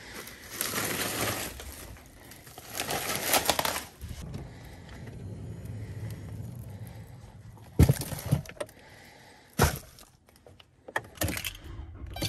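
Rustling and handling noises, then two heavy thumps of minivan doors being shut about two seconds apart, and keys clicking at the ignition near the end.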